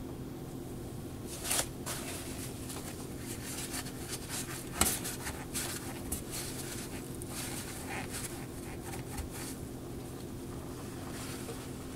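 Small clicks, scrapes and paper rustles of hands working in a kitchen faucet's open valve well, pulling out the old spring and rubber seat cup and blotting the water with a paper towel, over a steady low hum. The sharpest click comes about five seconds in.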